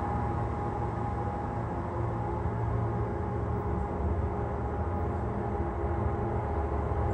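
Passenger train pulling away from the station, a steady low rumble of engine and wheels with a faint steady hum over it.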